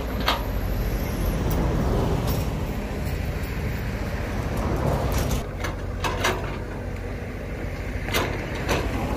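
Diesel engines of Sumitomo S265 hydraulic excavators running steadily under load as they dig mud from a ditch. A few sharp knocks stand out, a cluster about two-thirds of the way in and two more near the end.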